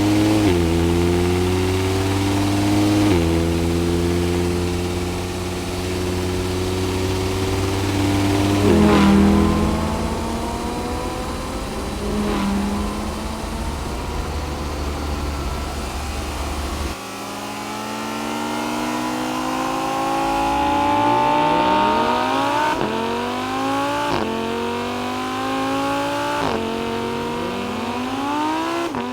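Audi R8 engine accelerating hard through the gears. The pitch climbs and then falls back at each gear change. About halfway through it switches to a thinner-sounding recording without the deep rumble, with repeated quick rises in revs and shifts.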